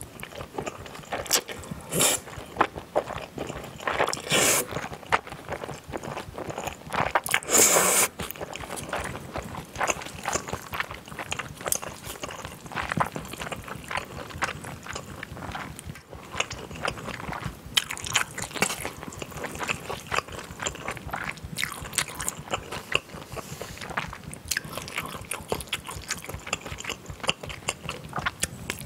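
Close-miked eating sounds: a person slurping and chewing chewy jjolmyeon noodles with raw vegetables, a steady run of wet chewing clicks, with louder slurps about 2, 4 and 8 seconds in.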